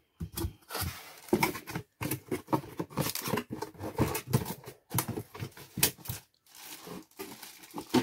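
Cardboard box flaps being opened by hand and the plastic bag around a kettle inside being handled: irregular rustling and crinkling with scrapes and small knocks.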